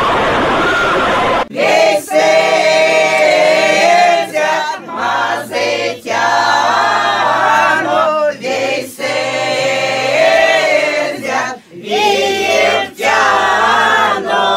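A choir singing unaccompanied, in phrases with short breaks between them. It comes in about a second and a half in, after a muffled, dull recording cuts off abruptly.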